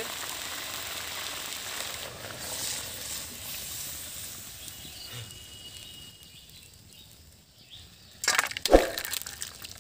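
Curry bubbling in a hot iron kadai with a steady hiss that dies away over several seconds. Near the end there is a loud burst of metal clatter and scraping, with a thump, as the kadai is tipped against a steel bowl to pour out the curry.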